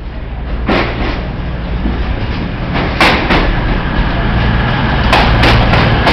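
CrossCountry Class 220 Voyager diesel multiple unit passing close by, its underfloor diesel engines humming and growing louder as it comes in, with sharp clacks of the wheels over rail joints and points that come more often near the end.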